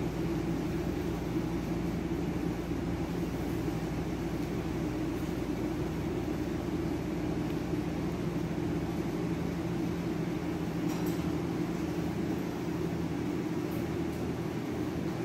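A steady low hum with a constant background hiss, unchanging throughout.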